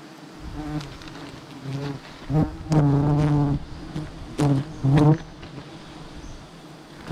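Giant honeybees (Apis dorsata) buzzing around the colony in a low steady hum. Loud pitched buzzing swells up as bees fly close past the microphone, a long pass about two and a half seconds in and two short ones around four and a half and five seconds.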